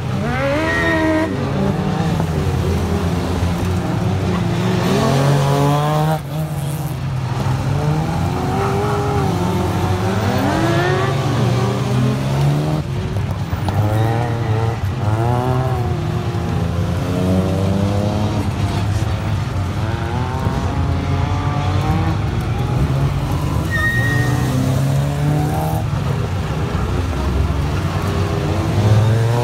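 A competition car's engine being driven hard on an autotest course, revving up in rising sweeps and dropping off again several times as it accelerates, brakes and turns.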